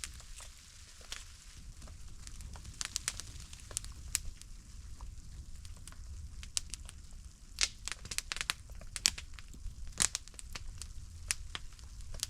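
Wood campfire crackling, with sharp irregular pops and snaps over a low steady rumble; a few pops stand out louder.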